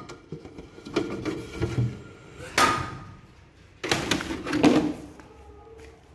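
Thin vacuum-formed 2 mm acrylic sheet being handled and set down: a sharp knock with a brief ring about two and a half seconds in, then a second or so of rattling clatter.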